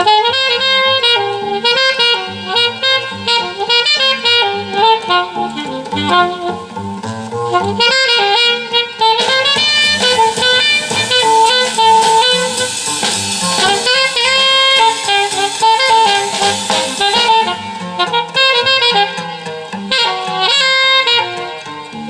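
Recorded jazz with a saxophone lead, played back through a 2A3 single-ended valve amplifier and loudspeaker. The band fills out into a fuller, brighter passage in the middle.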